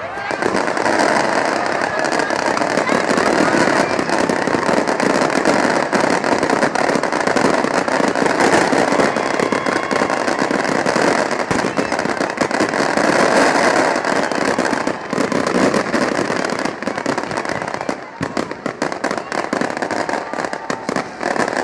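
Fireworks bursting and crackling without a break over a crowd's voices. From near the end the crackle thins into rapid separate pops and bangs.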